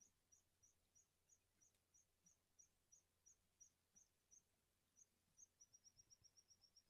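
Faint, high-pitched bird chirps repeated about three times a second, quickening into a rapid trill near the end.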